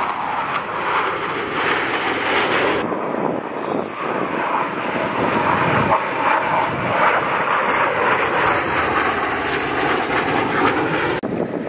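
Jet engines of Blue Angels F/A-18 Super Hornets running loud and steady as the fighters fly overhead, with a faint whine that slowly drops in pitch in the later part.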